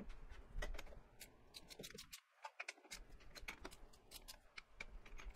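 Faint, scattered metallic clicks and taps as a steel True Bore Alignment System head is seated on a lathe's spindle adapter plate, and a hand ratchet begins tightening its mounting cap screws.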